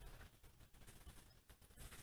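Near silence outdoors: only a faint low rumble and a few soft ticks.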